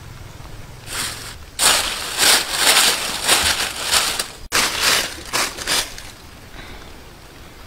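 Dry leaf litter crackling and rustling as hands rummage through it, in a run of crunchy bursts lasting about four seconds.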